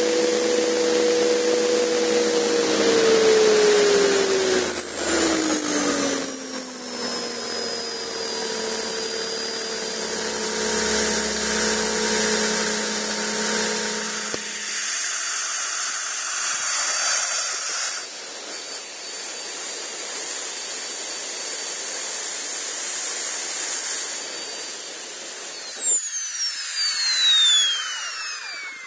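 Jetcat PTH-2 turboshaft engine and rotor drive of an RC turbine helicopter winding down on the ground. Several lower tones fall in pitch and stop about halfway through. A high thin whine holds steady, then glides steeply down in pitch near the end.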